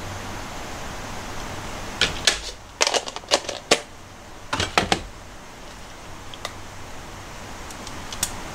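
A run of sharp light clicks and taps from a plastic food container being handled and set down over stainless steel bowls while chopped green onion is shaken out, clustered a couple of seconds in and stopping about halfway, with one more click near the end over a steady background hum.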